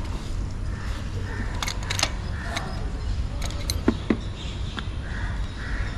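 Scattered light clicks and taps of small motorcycle parts being handled, over a steady low background rumble.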